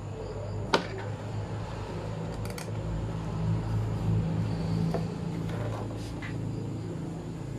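Steady low hum with a few sharp clicks and light knocks; one loud click comes near the start.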